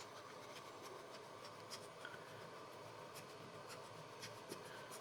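Faint scratching and scattered light ticks of a scraper being worked over a painter's-tape sheet as it is pressed onto a 3D printer bed.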